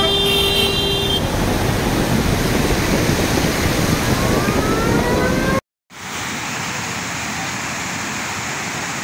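Muddy floodwater rushing in a swollen river: a loud, steady rush with a deep rumble. A short steady tone sounds at the start and a rising whine about four seconds in. After a brief dropout near six seconds the rush goes on, smoother and a little quieter.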